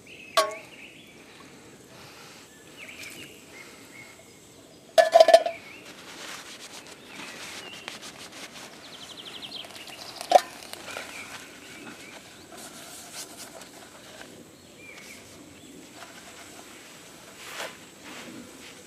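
A coated camping cook pot and the Primus gas stove it sits on clanking as they are handled, a short ringing knock at a time: a loud cluster about five seconds in, a single sharp clank about ten seconds in, and smaller ones near the start and near the end. Birds chirp throughout.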